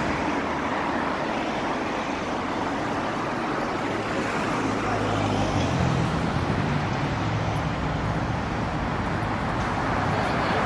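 Steady road traffic noise from a city street, with the low hum of passing vehicle engines, buses among them, swelling and fading about halfway through.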